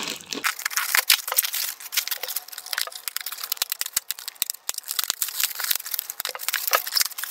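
Plastic packaging crinkling and crackling as a black plastic courier pouch is opened and the plastic wrapping around the item inside is pulled apart by hand, a dense, irregular run of crackles.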